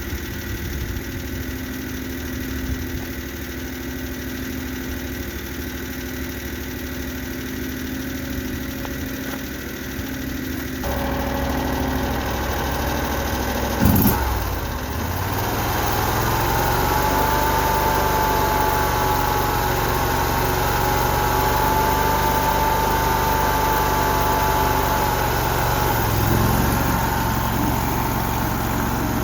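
Mini skid steer's engine running steadily; about eleven seconds in it gets louder, a sharp clunk comes a few seconds later, and then a steady whine rides over the engine for most of the rest.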